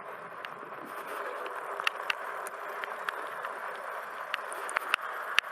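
Steady rushing noise of an electric bike being ridden, tyres on pavement and air over the microphone, with scattered sharp clicks and ticks.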